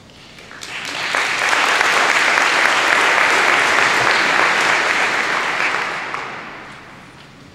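Audience applauding, swelling up over about the first second, holding steady, then dying away near the end.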